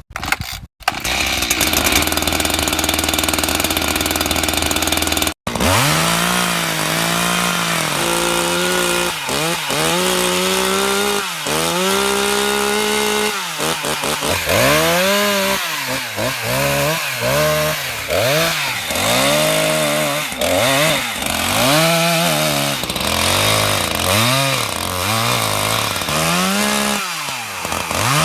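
Chainsaw engine running: steady for the first few seconds, then, after a brief cut, revved again and again, its pitch climbing and falling back many times, the revs coming quicker in the second half.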